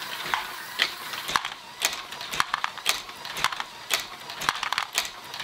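LEGO Great Ball Contraption module running, its plastic Technic mechanism clicking and clacking in an irregular patter of sharp clicks, two or three a second.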